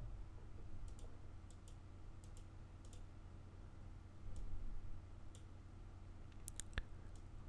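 Faint, scattered clicks of a computer mouse, about a dozen over the stretch, with several in quick succession near the end, over a low steady hum.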